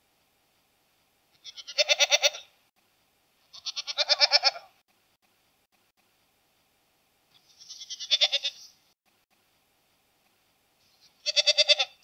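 Goat bleats, four in all, spaced a couple of seconds apart. Each lasts about a second and has a quavering, pulsing tone.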